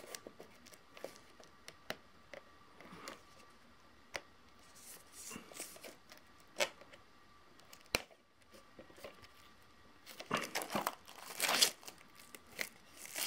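Plastic shrink-wrap film being picked at and peeled off a Blu-ray steelbook case. Scattered small clicks and crackles, then louder crinkling and tearing of the film from about ten seconds in.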